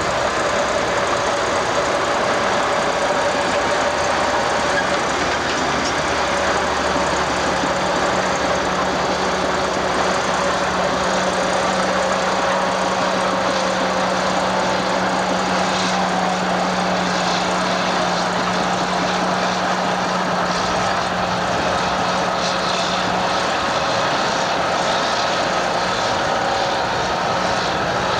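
Heavy diesel engines of a tracked excavator and an AEC Mercury dump truck running steadily together while the excavator digs and loads spoil into the truck's tipper body.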